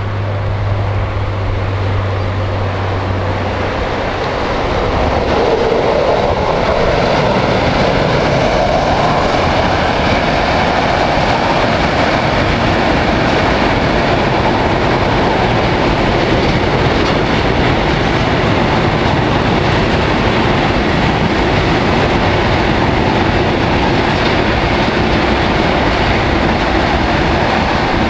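A train passing close by on the track. A low hum in the first few seconds gives way to loud, steady rolling noise from the wheels on the rails, which builds over the first six seconds and then holds level.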